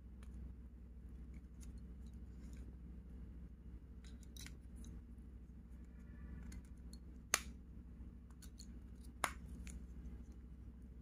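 Faint plastic clicks and snaps from a KGTEL i9 feature phone being handled as its battery is pressed into the compartment, with two sharper clicks about seven and nine seconds in, over a low steady hum.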